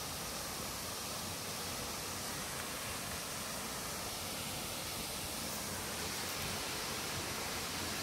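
Waterfall rushing, a steady even hiss with no breaks.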